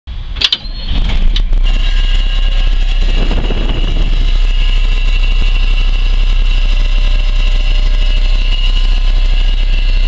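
1989 Blue Bird school bus engine starting: a few clicks, a short crank, and it catches about a second in, then runs steadily at idle. A steady high-pitched whine sits over the engine's low hum.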